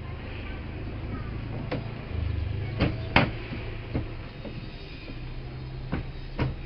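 Parts and tools being handled during washing-machine repair: about six sharp knocks and clicks, the loudest about three seconds in. A low steady hum runs underneath.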